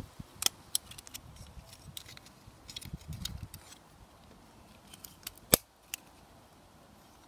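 Small plastic clicks and taps from a wireless room thermostat's casing, clips and circuit board being handled and prised apart with a screwdriver, with one sharper click about five and a half seconds in.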